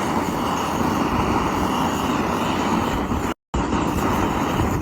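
Steady loud rushing noise, broken by a split-second silence about three and a half seconds in.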